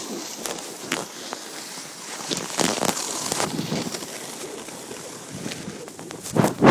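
Skiing or snowboarding edges sliding and scraping over packed snow on a descent, an even hiss with scattered short scrapes and clicks. Near the end a loud rush of wind noise on the microphone sets in.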